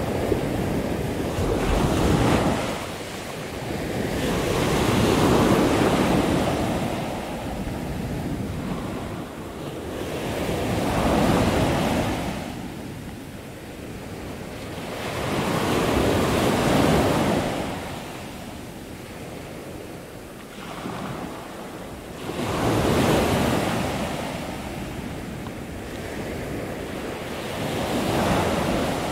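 Pacific surf breaking and washing up a sandy beach, the roar swelling and falling back about every five to six seconds as each wave comes in, with wind rumbling on the microphone.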